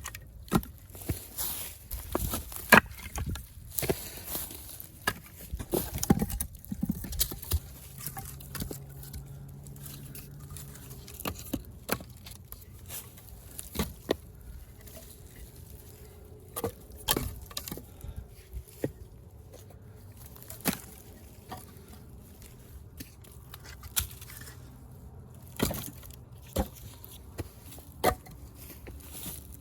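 Irregular knocks and clicks, thickest in the first several seconds and then scattered, over a faint steady low hum that starts several seconds in and fades near the end.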